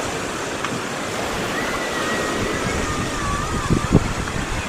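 Azov Sea surf: small waves washing in as a steady rush of water. A faint, wavering high call sounds in the middle, and there are two short low thumps near the end.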